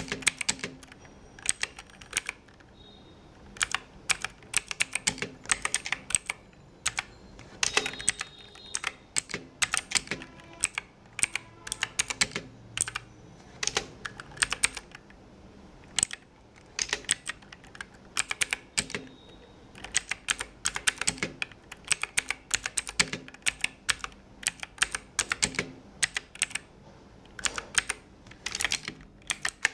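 Typing on a Bajeal K100 keyboard fitted with budget keycaps: runs of quick, sharp key clicks broken by short pauses.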